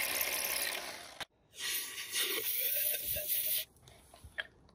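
Cordless rotary hammer drill boring a half-inch bolt hole into rock, dying away about a second in. After a short pause comes a second hissing burst of about two seconds, then only small ticks.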